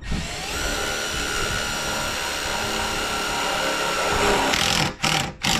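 Cordless drill driving a number 10 self-tapping hex-head screw through a metal angle bracket into a solar panel's frame: a steady motor whine for about four and a half seconds, then three short bursts of the drill near the end.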